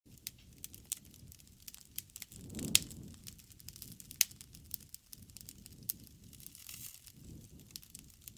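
Wood fire crackling, with scattered sharp pops over a soft low rumble of burning; the loudest pops come about three and four seconds in.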